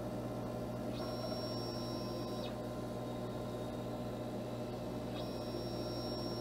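K40 desktop CO2 laser framing a job with its GRBL controller: the head's stepper motors whine as it traces the outline, with a high steady tone that comes in about a second in and again about five seconds in, each lasting about a second and a half. Under it runs the steady hum of the machine's exhaust fan and air-assist pump.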